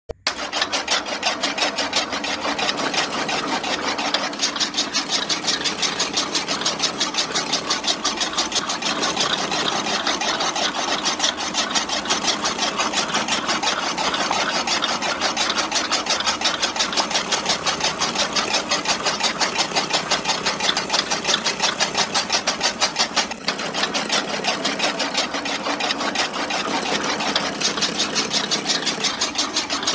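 Small DC motor on a homemade model tractor running and driving a miniature chaff cutter through a rubber-band belt, with a rapid, even mechanical clatter.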